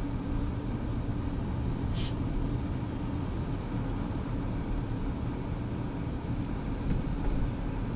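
Steady low rumble of a car's engine and tyres heard from inside the cabin while driving slowly, with a short hiss about two seconds in.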